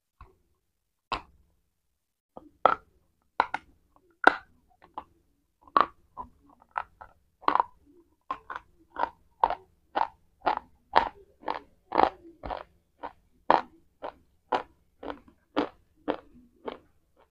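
Close-up crunching of a hard white chalky bar being eaten. A few separate bites come first, then steady chewing at about two crunches a second.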